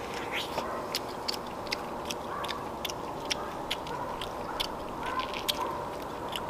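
Close-up eating sounds of a man chewing and gnawing stewed beef off beef spine bones: irregular wet smacks and clicks, about two or three a second, over a steady background hiss.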